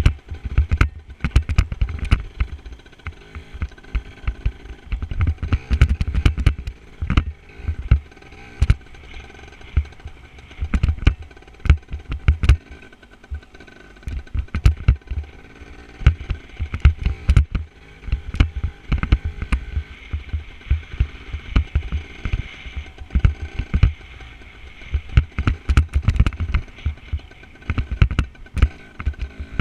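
Dirt bike engine running under heavy wind buffeting on a helmet-mounted camera, with frequent irregular knocks and clatter.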